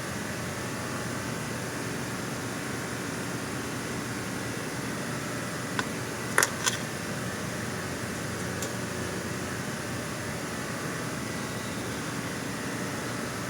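Steady mechanical hum with hiss, like a running motor or fan, broken by a few sharp clicks around the middle, two of them close together.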